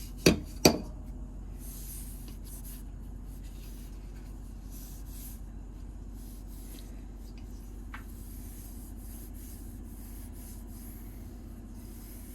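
Two sharp knocks about half a second apart near the start, then faint, intermittent rubbing as the freshly oiled metal parts of a quick-grip clamp are handled, over a steady low hum.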